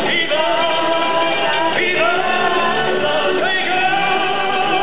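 Music with singing: long held sung notes, each phrase swooping up into its first note, three phrases in all.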